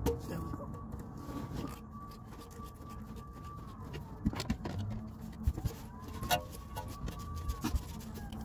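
A faint siren wailing in the distance, its pitch slowly rising and falling, under scattered sharp clicks and knocks of hand tools being handled.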